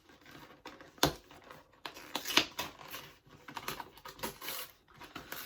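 Irregular clicks, taps and short rustles of the toy's packaging box being handled, with a sharp click about a second in.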